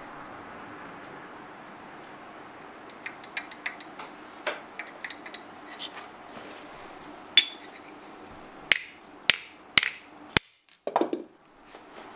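Light clicks and taps of a Japanese plane blade being worked in its wooden block (kanna dai), then four sharp hammer taps on the plane and a duller knock near the end. The blade is being fitted because it still rocks on an uneven bed.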